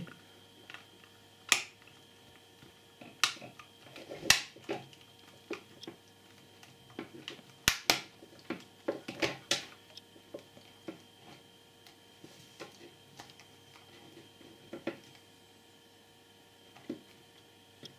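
Sharp plastic clicks and light taps, scattered irregularly, as the two halves of an Apple MagSafe power adapter's case are handled and lined up over their clips, with a quick double click about eight seconds in.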